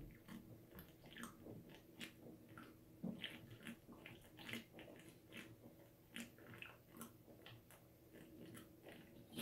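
A person chugging beer from two bottles at once: faint, irregular gulps and bottle glugs, a couple a second.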